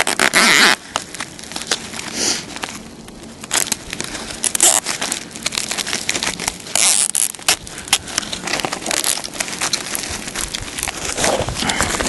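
Crinkling and rustling of flexible insulated duct-work and its plastic covering being handled, with irregular rustles and many sharp crackles.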